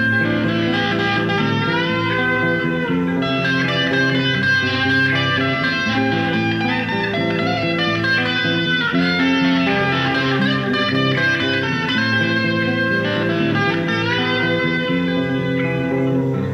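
Electric guitar playing a melody of bent, sliding notes over steady low notes.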